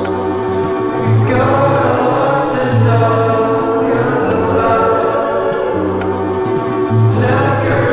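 Background music: a choir singing slow, sustained chords over a low bass line.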